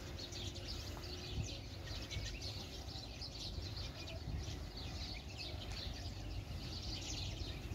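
Many small birds chirping continuously in the trees, short high chirps overlapping one another. A steady low rumble lies underneath.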